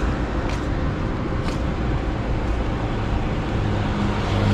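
Steady rain together with a running vehicle and road noise, with a faint tick about once a second. A low engine hum grows louder near the end.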